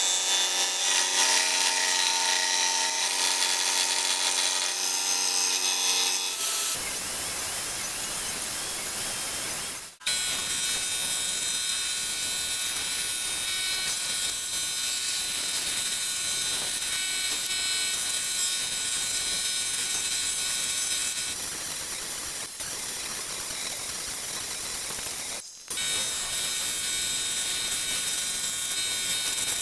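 Scroll saw running, its fine reciprocating blade cutting thin wood with a steady mechanical chatter. The sound drops out briefly twice, about a third of the way in and again near the end.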